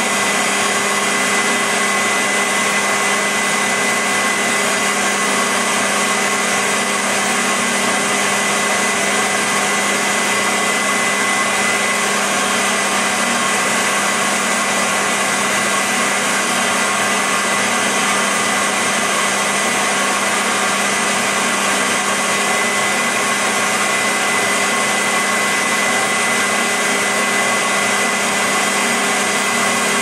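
Recorded vacuum cleaner motor hum mixed with added white noise: a steady, unbroken hiss with a few constant humming and whining tones, never changing.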